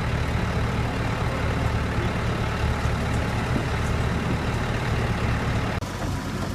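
Steady low engine hum of a running motor vehicle, with a brief dropout and a change in the sound near the end.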